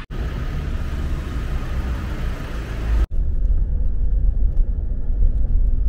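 Steady street traffic noise with hiss, which cuts off abruptly about three seconds in to the low, steady rumble of a car driving, heard from inside the cabin.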